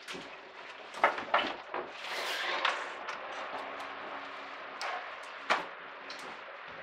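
A door being handled and people moving through a doorway: a quick run of three knocks about a second in, a brief rustle, and one more knock about five and a half seconds in.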